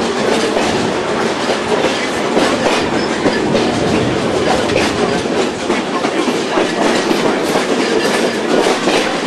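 Passenger train car rolling along the track, heard from aboard: a steady loud rattling run of wheel noise with many sharp clicks and clacks from the wheels passing over the rails.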